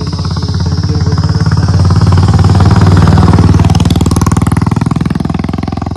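Motorcycle engine passing close by: its fast, even firing pulse grows louder to a peak about halfway through, then fades.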